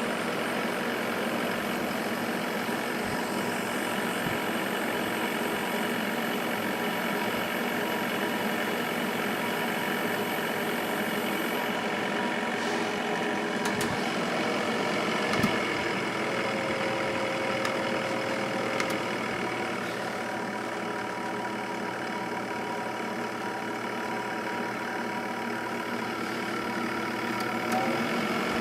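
Sharp 8500 BTU window air conditioner running: a steady hum of compressor and fan with several steady tones, and a faint knock about halfway through.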